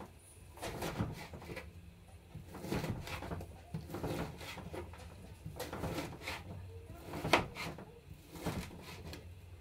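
Kitchen knife slicing raw liver on a plastic cutting board, the blade knocking against the board in irregular taps, the sharpest near the end.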